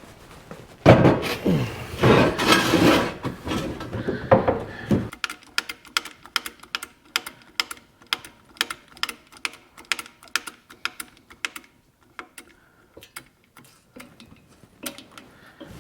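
A loud, dense burst of sound lasting about four seconds, then a long run of sharp clicks, about three a second with short pauses. The clicks come from a hand ratchet drawing the halves of a homemade dimple die together to press a dimple into sheet metal.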